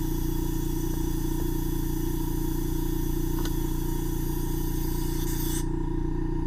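Ear microsuction unit running steadily: a constant motor hum with a high airflow hiss, and the hiss cuts off suddenly about five and a half seconds in.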